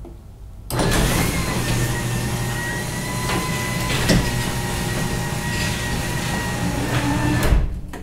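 Genie Model 1055 belt-drive garage door opener running in program mode, driving the door down: a steady motor whine with a low hum that starts about a second in and cuts off just before the end, with a couple of faint clicks along the way.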